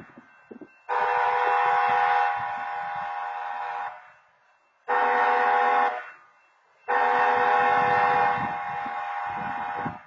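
Railroad horn blowing the grade-crossing signal: a long blast about a second in, a short one near the middle, then another long one. Each is a steady chord of several tones.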